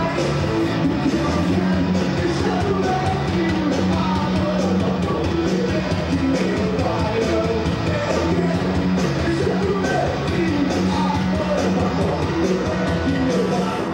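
Rock band playing live at full volume, with a male lead vocal over electric guitar, bass and drums.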